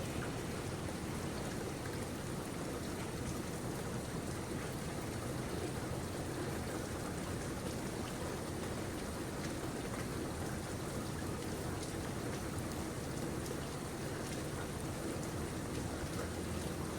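Steady rain falling, an even hiss with fine pattering of drops on surfaces.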